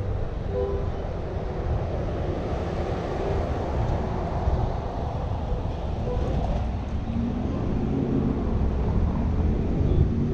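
Car driving: a steady low rumble of road and engine noise, with another engine's note coming up in the last few seconds.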